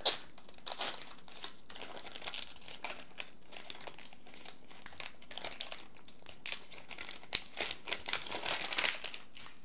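Packaging wrap crinkling and rustling in the hands as a small charging case is unwrapped: a run of irregular crackles, denser in the first second and again in the last couple of seconds.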